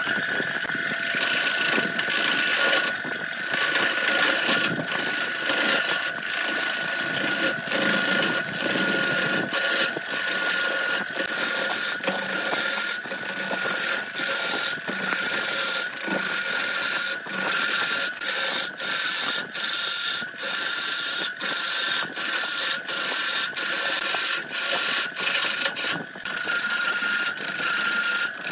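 Wood lathe starting up and running with a steady high whine, while a gouge roughs down a spinning bark-covered log with a harsh hissing rasp that pulses regularly.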